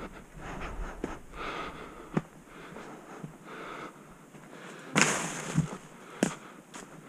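A hiker's footsteps on a trail with snorting, heavy breathing, and a loud, short rush of noise about five seconds in.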